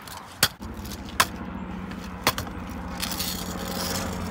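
Kick scooter on asphalt: three sharp clacks as the deck and wheels strike the pavement during the hop and spin, then the wheels roll over rough pavement. A steady low hum runs beneath.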